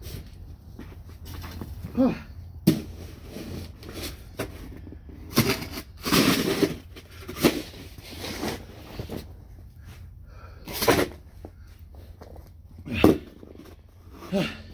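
Snow shovel with a red plastic blade scraping and digging into deep, heavy snow in irregular strokes, about nine in all, with one longer scrape about six seconds in.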